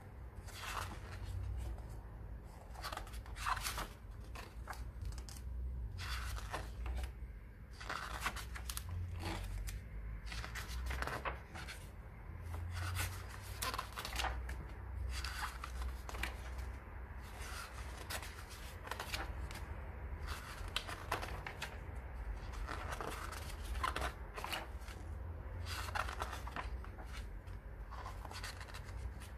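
Pages of a graphic novel being turned one after another: short papery swishes and rustles about once a second, over a low steady rumble.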